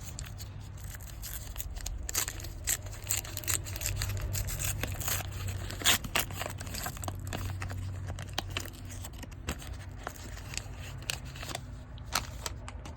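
Foil wrapper of a baseball card pack being torn open and crinkled by hand: irregular sharp crackles, the loudest about six seconds in.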